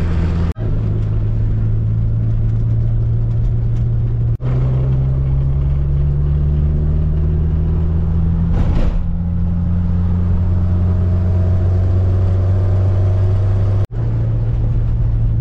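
Renault 4's engine running steadily with road noise, heard from inside the cabin while driving. There are short breaks and a change in the engine's pitch three times, where separate driving clips are joined.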